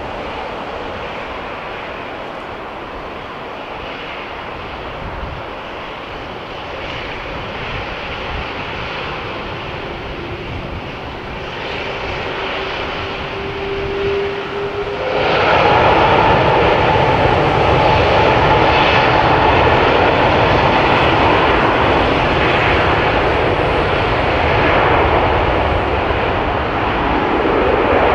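Jet airliner engines: a steady roar with a whine slowly rising in pitch. About halfway through it suddenly grows much louder, with a higher whine over a fuller roar.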